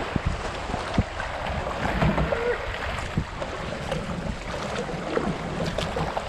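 Flooded creek water rushing around a kayak, a steady wash broken by a few sharp knocks and splashes.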